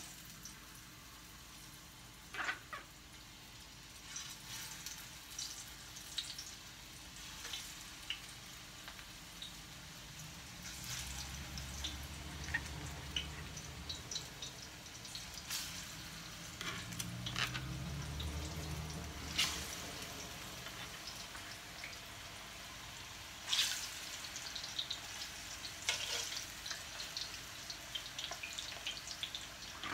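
Ripe plantain slices sizzling with a fine crackle as they fry in hot oil in a skillet, with several sharp clicks of metal tongs against the pan as the slices are laid in.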